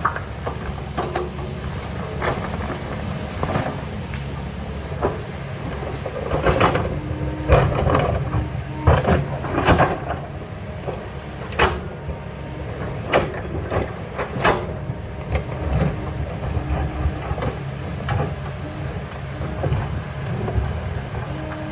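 Diesel engine of an earthmoving machine running steadily as it digs, with repeated sharp clanks and knocks of the steel bucket against rock and soil, thickest through the middle of the stretch.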